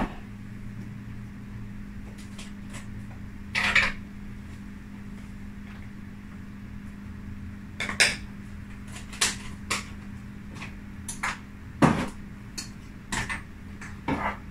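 Spice containers and their lids being handled, opened and set down: about eight short clicks and knocks spread irregularly, with a longer rustling scrape just before four seconds in.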